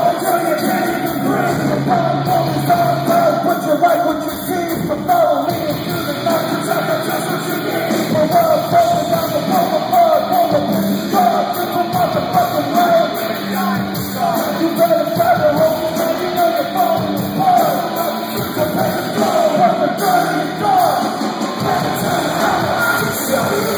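A rap-rock band plays live with vocals. The music is loud and continuous, as picked up by a phone's microphone in the crowd.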